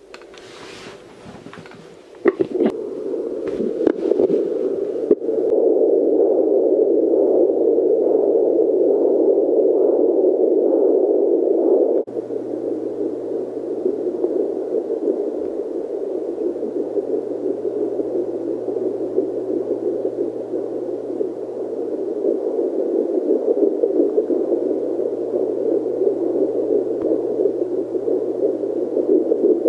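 Angel Sounds JPD-100S4 handheld fetal Doppler's speaker giving a loud rushing static over a steady low hum as the probe searches the belly for a 7-week fetus's heartbeat. The probe scrapes and crackles over the cream-coated skin in the first few seconds, and the static swells a couple of seconds in.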